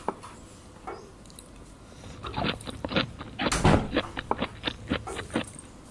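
Crinkling and crackling of food packaging being handled and pulled open: a run of short sharp crackles starting about two seconds in, loudest a little past the middle.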